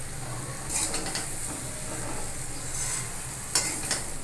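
Spatula stirring soya chunks and potatoes in oil in a steel kadhai: a steady sizzle, with several scrapes of the spatula against the pan, the sharpest a little before the end.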